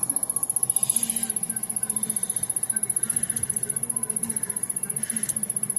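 Samsung rear-projection CRT television's power circuit ticking fast and evenly, well over ten ticks a second, as the set tries and fails to power up. The uploader says the ticking comes from something shorting out without blowing the internal fuses, and the video puts it down to a relay fault.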